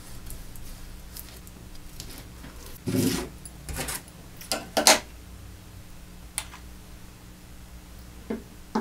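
A few short rustles and clatters of art materials being handled and moved on a tabletop: paper being lifted away and a small jar being set down, the loudest about three seconds in and again around five seconds. A low steady hum runs underneath.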